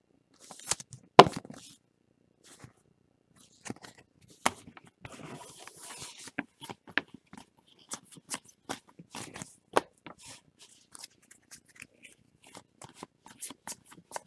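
Baseball trading cards being handled and flipped one after another: a string of sharp card flicks and snaps, the loudest about a second in, with a brief papery rustle around five seconds in.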